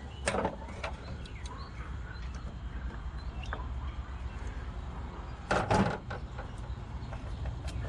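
A few sharp clicks and knocks of hand tools being handled at a truck's battery terminals, with a louder double knock about five and a half seconds in, over a low steady rumble.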